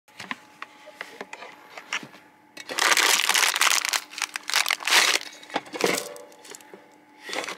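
Rustling and crinkling handling noise, like plastic or fabric being crumpled, with scattered clicks; it is loudest for about two and a half seconds in the middle, and a shorter rustle comes near the end.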